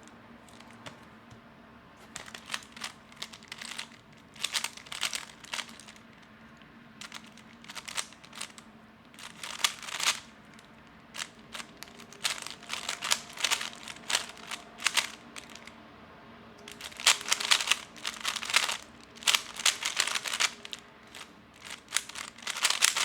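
Magnetic 3x3 speedcube being turned fast by hand: bursts of rapid plastic clicking and clacking broken by short pauses, starting about two seconds in.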